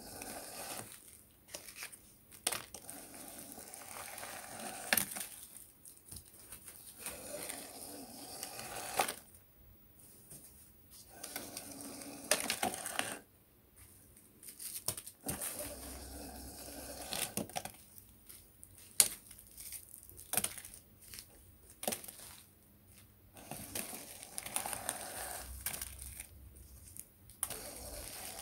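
The servo-driven paddle packer of a 3D-printed PLA model rubbish truck compacting miniature bin bags in its hopper: crinkling and crunching of plastic with sharp clicks, in spurts separated by short pauses.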